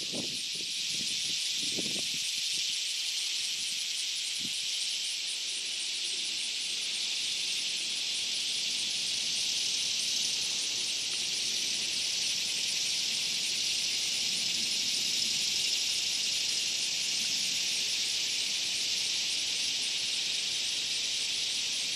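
Insect chorus: a steady, even drone with a fast pulsing trill above it. A few soft low thumps come in the first two seconds.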